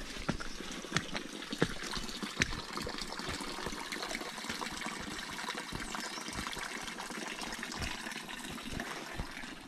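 Running water trickling and splashing steadily, with many small scattered clicks and taps over it.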